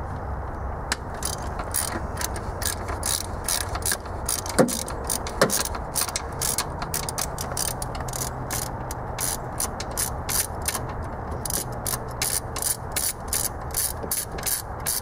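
Hand socket ratchet clicking in quick back-and-forth strokes, about three or four clicks a second, as it turns out the intake manifold bolts. There are two sharper knocks about a third of the way in.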